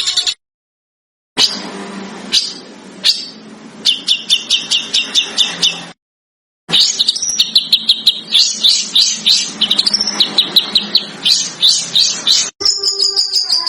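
Recorded songbird song in spliced clips: fast runs of repeated sharp chirps, about six a second, broken by two short silent gaps, then a different bird's whistled song starting near the end.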